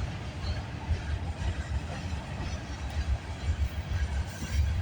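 Freight train rolling past: a steady low rumble of cars on the rails.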